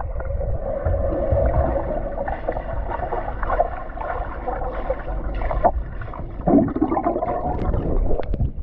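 Muffled gurgling and bubbling of swimming-pool water heard with the microphone under the surface: a dull, rumbling wash with the high sounds cut away.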